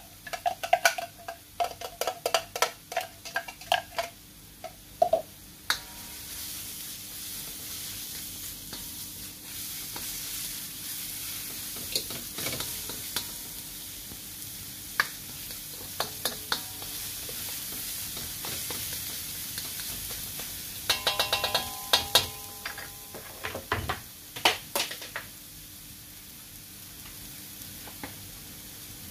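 A small plastic container is knocked repeatedly against a wok, each knock ringing briefly, for about the first five seconds. Then chopped pork and aromatics sizzle in hot oil in the wok while a spatula stirs and scrapes them, with another run of ringing knocks on the wok a little after twenty seconds in.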